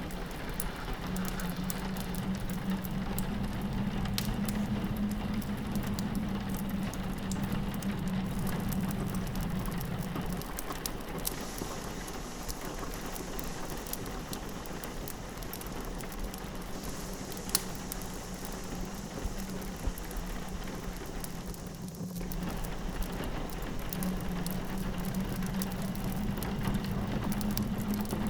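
Rain pattering against a window over a crackling fireplace, with a few sharper pops from the fire near the middle. A low wind howl is strong at first, fades away, and swells again near the end.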